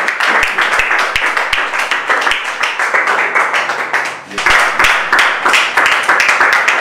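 People clapping in applause, dense and steady, easing off briefly about four seconds in and then picking up again.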